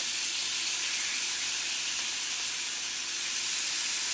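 Chicken cutlets sizzling steadily in butter and oil on a hot cross-hatched griddle pan.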